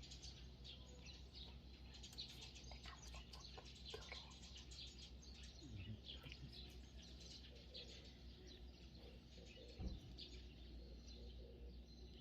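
Faint birdsong: many short chirps from small birds, scattered and overlapping, with a single dull knock near the end.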